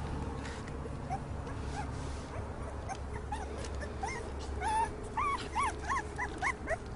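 Puppy whimpering: a run of short rising-and-falling whines, faint at first, growing louder and more frequent about four seconds in.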